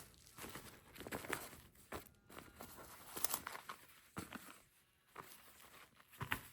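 Scattered light taps and faint rustling of a boxed perfume bottle and its packaging being handled, with a handful of sharper clicks along the way.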